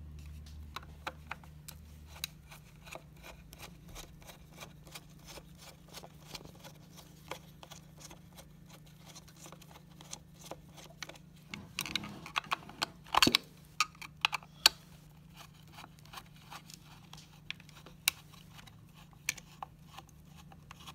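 Phillips screwdriver working the screws out of a hoverboard's battery pack: a run of small clicks and scrapes of the tool on the screws and plastic mounts, with a few louder knocks about twelve to fifteen seconds in.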